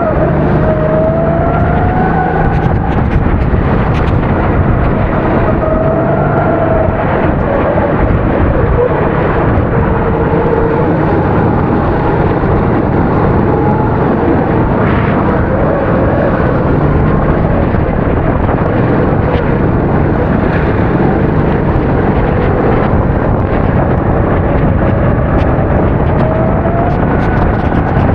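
270cc four-stroke racing kart engine running hard, its pitch rising and falling again and again as it revs up and lifts off, over a steady rushing noise.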